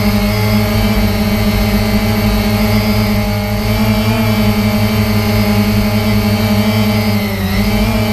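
Quadcopter drone's motors and propellers humming steadily in flight, heard from a camera mounted on the drone itself. The pitch dips briefly about seven seconds in.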